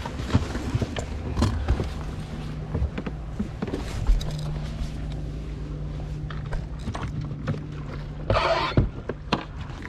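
A bass boat's motor running at low speed, a steady low hum, with scattered knocks and clunks from gear on the deck and a brief louder clatter about eight and a half seconds in.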